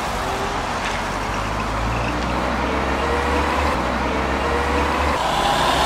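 Road traffic passing close by: a car and then a bus drive past, with a steady low engine hum and tyre noise.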